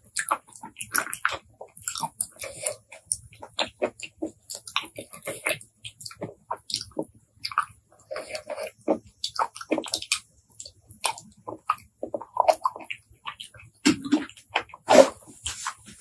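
Close-miked chewing and biting of boiled blood cockles: a dense, irregular run of short mouth clicks and smacks, the loudest about a second before the end.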